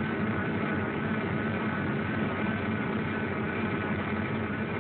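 Steady machine drone with a faint even hum, without pauses or changes, heard through a muffled old film soundtrack.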